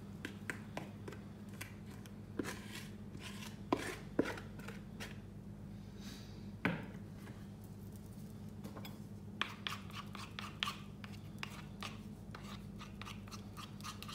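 Wooden and metal spoons scraping and tapping a thick pudding mixture against mixing bowls: irregular clicks and a few louder knocks, busier in the second half, over a faint steady low hum.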